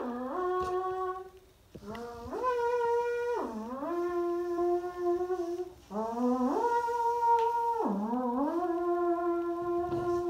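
A woman's voice humming eerie, theremin-like 'alien' sounds: long sliding notes that climb in steps to a held high tone, dip sharply, then slide up to a held lower tone. One phrase ends about a second in, and two more start at about two and six seconds in.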